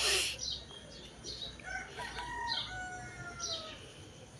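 A rooster crowing, a long call with several gently falling tones, while small birds give short high chirps about once a second; a brief rushing noise opens it.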